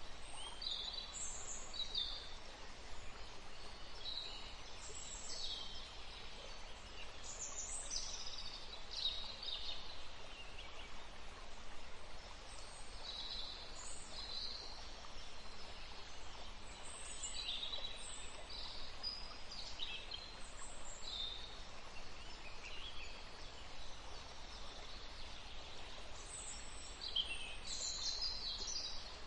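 Wild birds chirping in short, high calls scattered throughout, several overlapping at times, over a steady outdoor background hiss.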